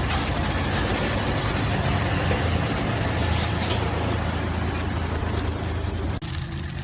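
Drum wood chipper running, a steady heavy engine drone under a loud, dense noise. Near the end the sound breaks off abruptly and goes on as a quieter engine hum with much less noise.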